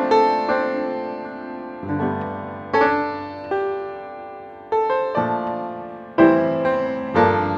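Background piano music: single notes and chords struck about once a second, each ringing and fading before the next.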